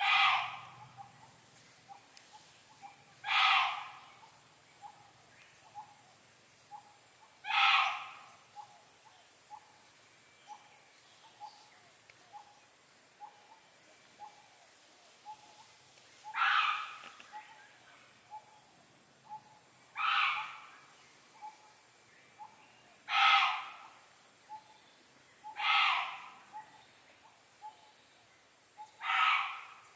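Loud repeated calls of a forest animal, eight in all, one every three to four seconds with a pause in the middle, over a faint, evenly repeating ticking.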